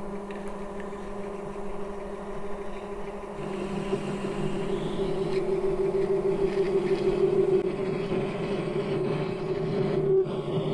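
Mini metal lathe running with a steady motor hum while a parting tool cuts into the spinning rod to part it off. The cutting noise grows louder about four seconds in.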